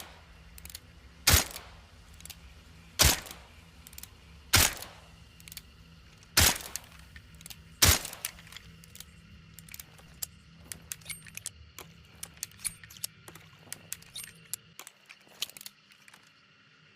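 Silenced Nagant M1895 revolver fired five times, one sharp shot every second and a half or so. This is followed by a long run of light metallic clicks and rattles from the gun's mechanism.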